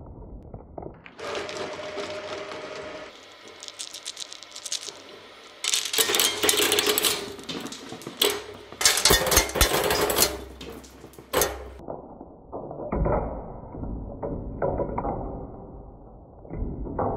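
Industrial twin-shaft shredder tearing up a plush Elmo toy, with several seconds of loud crunching and cracking as its hard parts break. Then the steel cutter blades turn with sharp clicks and clatter as plastic dice tumble on them.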